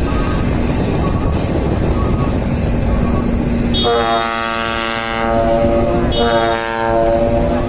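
A dump truck's trumpet air horn sounds two blasts over running engine and traffic noise. The first blast starts about four seconds in and lasts just over a second; the second, shorter one comes about two seconds later.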